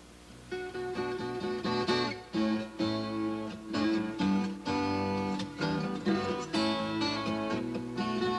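Background acoustic guitar music, plucked and strummed chords, starting about half a second in.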